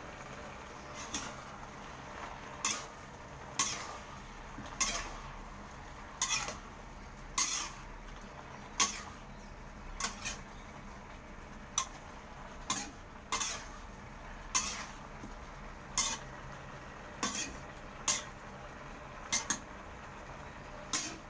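A spatula stir-frying vegetables and shrimp in an electric wok, knocking and scraping against the metal pan about once a second.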